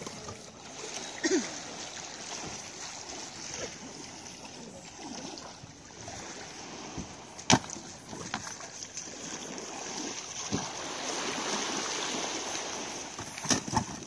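Sea water splashing and washing, swelling for a few seconds near the end, with a few sharp knocks scattered through it.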